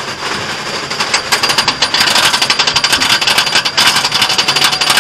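Riddler's Mindbender steel roller coaster train rattling fast along its track, heard from on board: a dense, loud clatter that grows louder about a second in and again about two seconds in.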